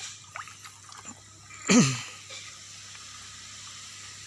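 Aerated water in a biofloc fish tank bubbling and churning steadily. A short human voice sound cuts in about two seconds in.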